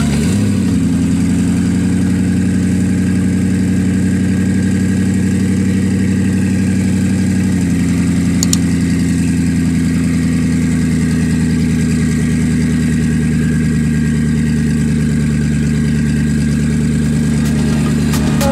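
Koenigsegg Regera's twin-turbo V8 idling steadily. Its idle steps down slightly about seven or eight seconds in.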